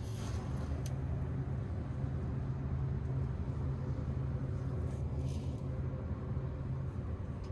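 Steady low rumble inside a carriage of the Sunrise Express sleeper train, with brief rustles of a fabric berth curtain being drawn near the start and again about five seconds in.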